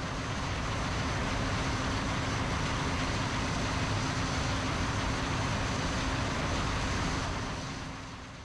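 John Deere combine harvester running steadily while harvesting corn: an even mechanical rush with a constant low hum underneath. It fades out near the end.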